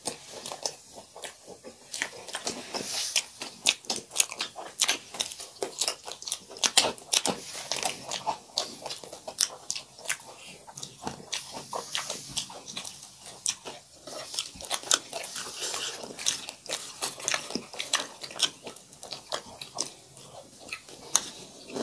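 A person biting and chewing crunchy food close to the microphone, with a dense run of sharp crunches.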